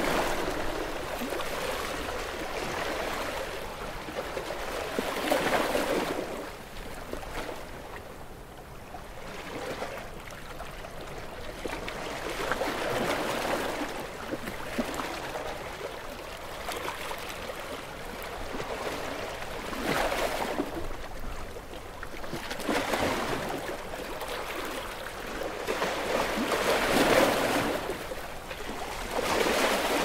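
Ocean waves washing in and rolling back, a rushing sound that swells and fades every several seconds.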